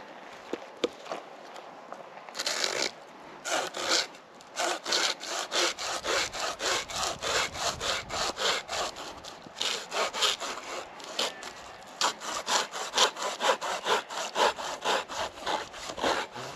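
Fiskars Xtract SW72 fine-toothed folding pull saw cutting through a thin branch by hand. After a couple of quiet seconds with a few light clicks, a slow first stroke starts it off. Then comes a steady run of quick back-and-forth rasping strokes, about two to three a second.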